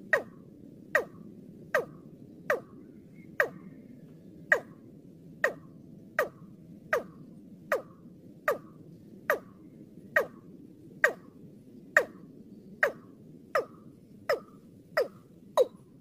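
Watercock (Gallicrex cinerea) calling: a steady series of short, sharp notes, each dropping quickly in pitch, about five calls every four seconds, played as a lure call.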